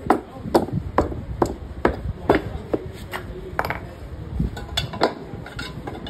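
Metal hand tool striking a motorcycle alloy wheel and tyre: sharp clinking knocks, about two a second, as a new tyre is worked onto the rim.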